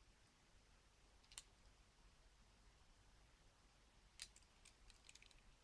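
Near silence with a few faint clicks from a small die-cast toy car being turned in the fingers: one about a second and a half in, then several close together near the end.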